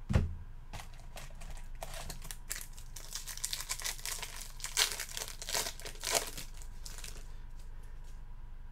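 A trading card pack wrapper being torn open and crinkled by hand: a thump at the start, then several seconds of crackling and crinkling that die down about seven seconds in.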